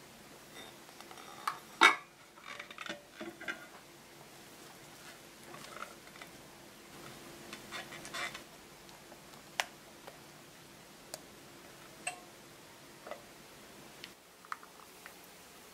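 Wire whisk beating eggs and sugar in a glass mixing bowl, heard as short spells of clinking and rattling against the glass. There is one sharp knock about two seconds in, and scattered single clicks later on.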